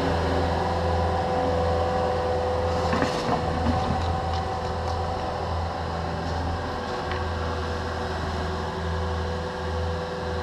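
Diesel engines and hydraulic whine of a Cat 305.5E2 mini excavator and a Cat 289D compact track loader running steadily while moving dirt, with a few brief clanks about three to four seconds in.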